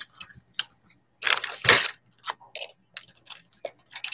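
Small hard trinkets clicking and clattering as they are handled and dropped into a container: a run of separate light clicks, with a louder jumbled rattle about a second in.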